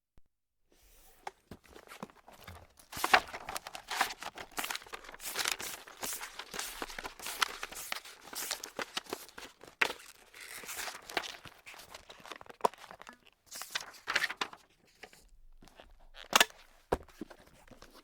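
Paper being crumpled by hand: a dense, irregular crackle of sharp crinkles in bursts, easing off near the end to a few single crackles.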